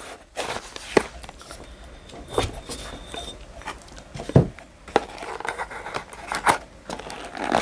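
Hands working at a small cardboard box to open it: sharp clicks and taps of long fingernails on the card, with scraping and light rustling in between.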